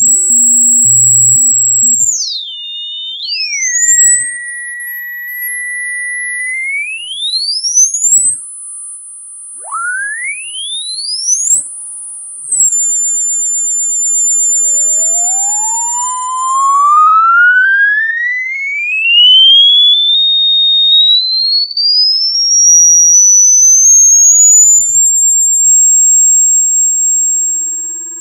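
Electronic pure tones of an anti-rodent repellent sound, sweeping up and down in pitch with some held at a piercing high whistle. From about the middle, one long slow rise climbs from a low tone to a very high one over roughly twelve seconds.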